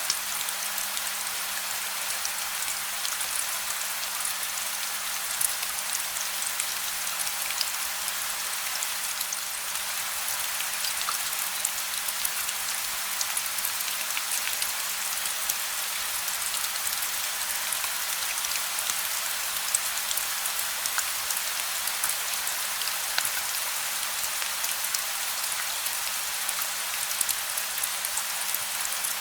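Steady gentle rain: an even hiss of falling rain with scattered single drops ticking, and no thunder.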